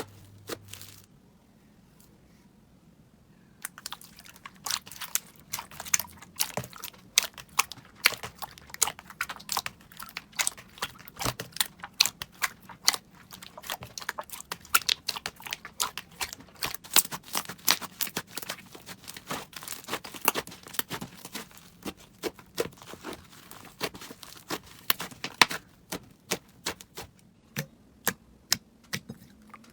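Slime being squeezed and worked by hand, giving a fast, irregular run of crackling pops and clicks that starts about four seconds in, after a short quiet spell.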